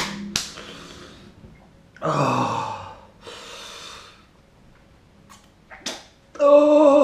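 A man groaning and breathing hard from the burn of a superhot chilli pepper: a groan falling in pitch, a hissing breath out, then a louder falling groan near the end, with a few sharp clicks between.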